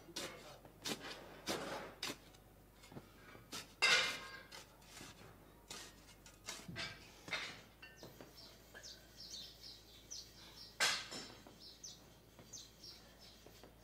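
A metal spade scooping and scraping moulding sand into a mould box, heard as a series of separate scrapes, the loudest about four seconds in and another about eleven seconds in.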